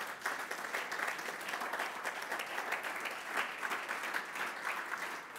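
Audience applauding: many hands clapping in a dense, even patter that eases off near the end.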